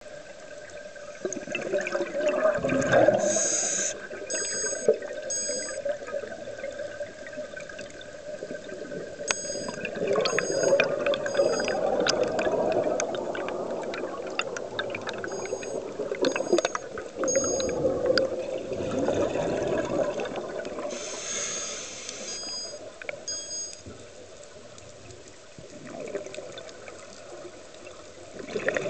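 Scuba breathing heard underwater: several long bursts of exhaled bubbles gurgling out of a regulator every few seconds, with brief hisses of inhalation and scattered faint clicks.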